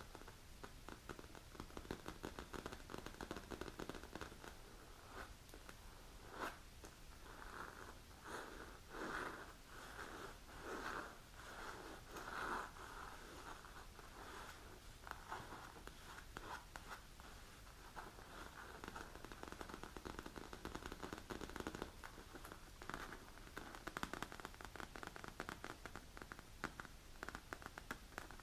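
Long natural fingernails scratching and tapping on a black leather nail cushion: dense fine ticks, with a run of slower scratching strokes about one a second in the middle.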